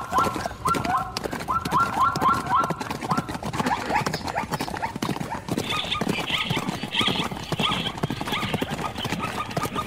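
A zebra's barking calls, short yelps in quick series, strongest in the first few seconds, with higher squeals a little past the middle, over scuffling hooves and thuds as it fights off an attacking predator.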